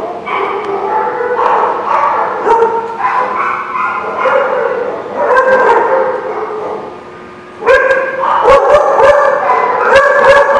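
Several dogs barking and yipping at play, their calls overlapping at different pitches. There is a brief lull about seven seconds in, then the barking comes back louder, with sharp clicks mixed in.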